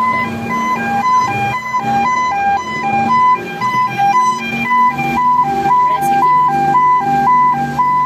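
Emergency vehicle's two-tone hi-lo siren, switching between a higher and a lower note about twice a second, over a steady low hum.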